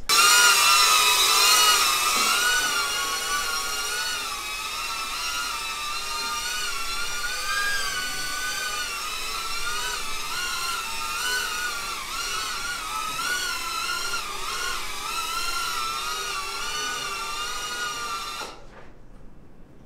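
Small FPV quadcopter (Shendrones Squirt HD) in flight, its motors and propellers giving a high whine whose pitch rises and falls with the throttle, cutting off near the end.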